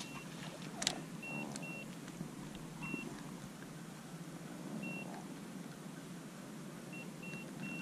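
Short high electronic beeps at a single pitch, sounding singly and in quick runs at irregular intervals, over a steady low rumble. A sharp click about a second in.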